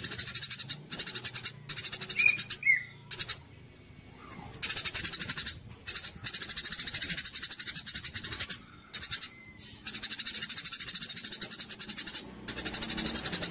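Eurasian tree sparrow ('gereja cililin') singing a fast rattling 'kapas tembak' song: high, very rapid chirps strung into bursts of a second or two with short pauses between. A couple of lower whistled notes come about two seconds in.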